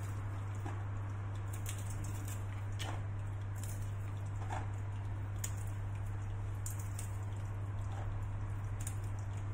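Walnut halves crackling as they are crushed between the fingers and dropping into a steel saucepan of apple filling: scattered, irregular small clicks over a steady low hum.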